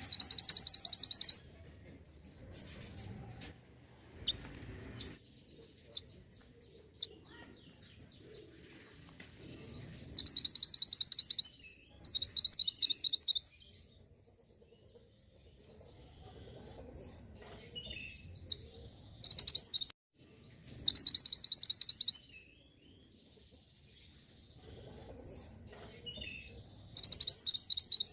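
A songbird singing in loud, fast, high trilled phrases about a second and a half long, mostly in pairs a couple of seconds apart, with softer chirps and short notes between them.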